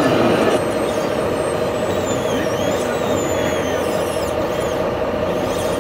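Radio-controlled hydraulic excavator working, its hydraulic pump running with a steady hum and faint whines that rise and fall as the boom and bucket move.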